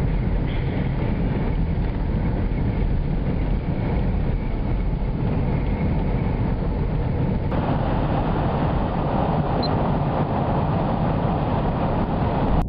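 Steady road and engine noise inside a car's cabin. About halfway through, the noise suddenly gets brighter and hissier.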